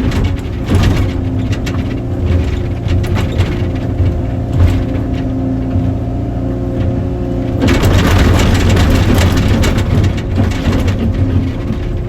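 Diesel engine of an excavator running under load, with clicks and knocks of work throughout. About eight seconds in, a louder, noisier stretch begins and lasts nearly to the end.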